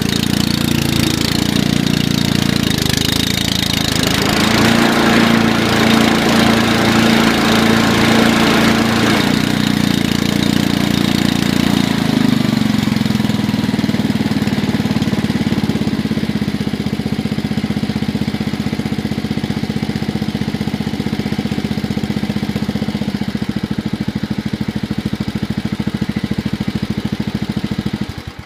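Honda GXV160 single-cylinder overhead-valve engine on a Honda HRD536 lawn mower running steadily, freshly rebuilt with a new crankshaft and running well. Its speed rises slightly about four seconds in and eases back down after about ten seconds, and the sound stops right at the end.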